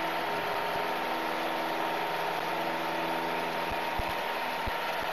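Light airplane's piston engine running steadily during the takeoff roll, heard from inside the cabin. A few short low thumps come through now and then.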